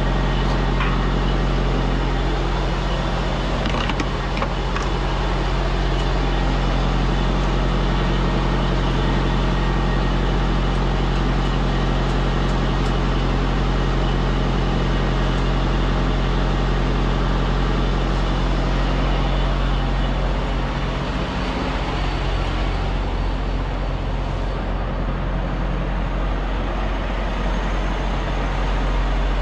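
Freightliner semi truck's diesel engine running at low speed as the truck creeps into a fuel lane, a steady low drone. Around two-thirds of the way through the engine note changes and eases off as the truck slows at the pump.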